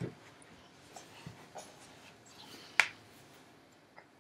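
Quiet room with faint rustling and small clicks as a small object is handled, and one sharp tap just under three seconds in.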